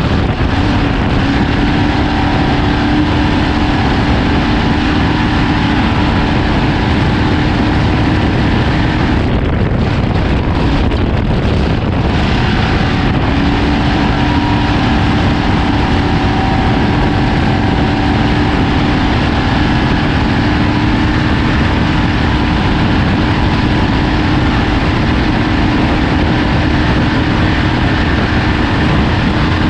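Ford Ranger desert race truck running at speed, heard from on board: a steady engine drone under a constant heavy wash of wind and terrain noise. The engine note drops away for a few seconds about nine seconds in and comes back about four seconds later.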